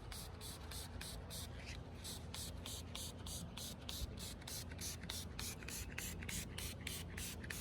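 Spray bottle of headlight surface activator pumped rapidly, giving quick, evenly spaced spritzes about four a second.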